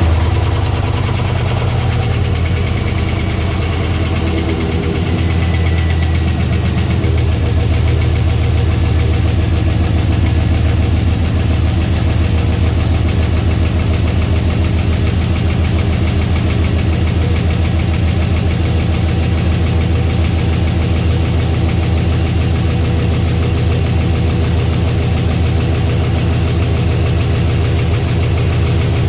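GM 6.0-litre LQ4 V8 idling steadily just after its first start on new rod bearings, with a noise that the owner puts down to parts not yet getting much oil before the oil pressure builds.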